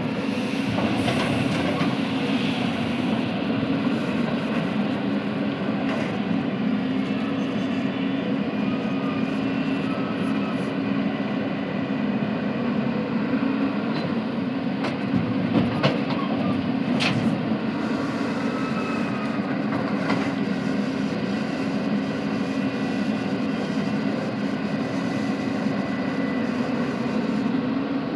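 Cat 320 hydraulic excavator's diesel engine running steadily under load, with a couple of sharp knocks about halfway through.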